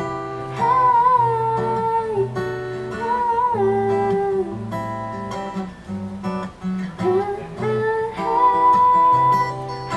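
Instrumental break of a live pop ballad: guitar accompaniment with a moving bass line under a gliding melodic lead line.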